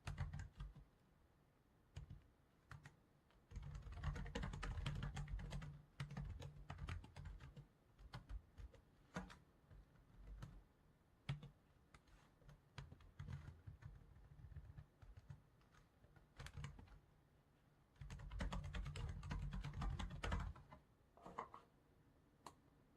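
Computer keyboard typing in two quick runs of keystrokes, with scattered single clicks and short key taps in the pauses between.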